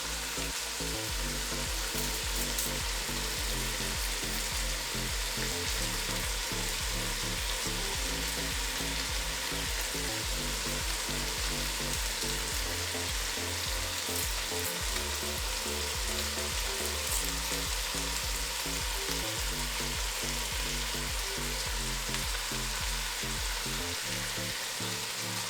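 Beef cooking with tomatoes and spices in a pot, sizzling steadily throughout.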